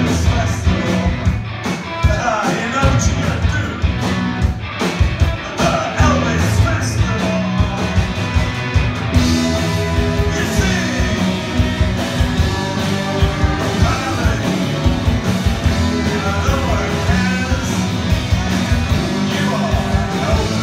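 Rock band playing live: electric guitars and a steady drum beat, with a man singing lead into a microphone. The sound grows brighter about nine seconds in.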